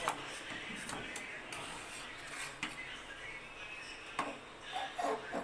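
Flat metal spatula stirring a watery goat curry in a metal kadai, scraping and clinking against the pan several times over the steady hiss of the simmering liquid.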